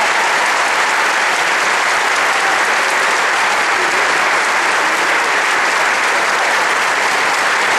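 Concert audience applauding steadily, a dense, even clapping that neither swells nor fades.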